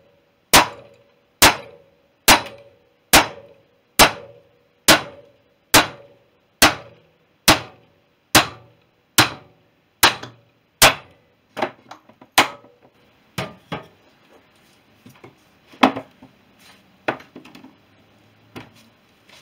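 Copper-faced mallet hammering the end of a BSA B31 front wheel spindle to drive the old wheel bearing out of the hub. It strikes at a steady pace, a little over one blow a second, each blow a sharp metallic strike with a short ring. After about eleven seconds the blows turn lighter and irregular, then give way to a few scattered knocks as the bearing comes free.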